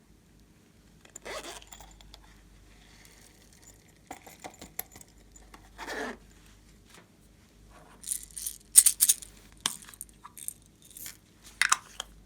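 Hands squeezing, stretching and poking slime: irregular sticky clicks, pops and crackles, two longer squelches, and a louder, denser run of crackling in the last few seconds.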